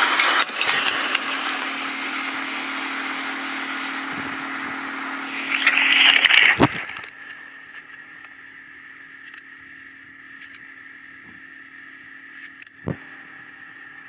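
Animated-film sound effects: a loud rushing mechanical noise over a steady low hum swells and then cuts off suddenly about seven seconds in. After that a quieter steady hum remains, with scattered light clicks and one sharp thud near the end.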